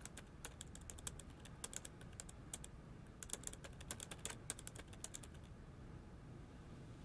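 Typing on a MacBook laptop keyboard: quick, irregular runs of soft keystrokes that stop about five seconds in.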